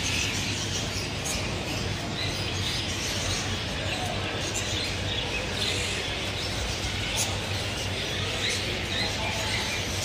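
Many small caged birds chirping and twittering over a steady background din with a low hum.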